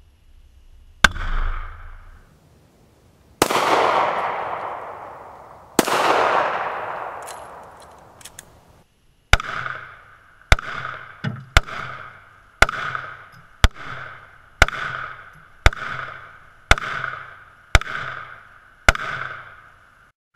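Semi-automatic pistol shots: a single shot about a second in, two louder shots with long echoing tails around three and six seconds in, then a steady string of about eleven shots roughly one a second.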